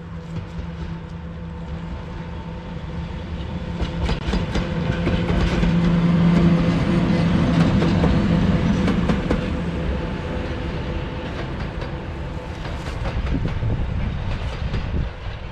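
Freight train passing, its wheels clacking over rail joints over a steady hum. It grows louder to a peak around the middle, then eases off with a smaller swell near the end.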